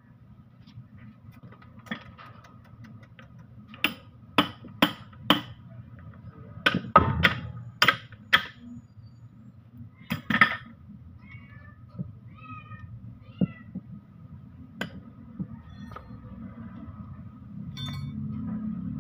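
Sharp metallic knocks and clinks from hand tools working on a Mitsubishi Canter gearbox housing being taken apart, coming irregularly and loudest about seven seconds in. A few short high chirps sound in the middle.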